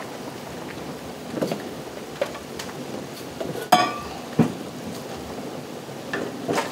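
Sap boiling hard in the flat pans of a wood-fired maple syrup evaporator, a steady hissing bubble, with scattered metal knocks and one louder ringing metal clank about midway.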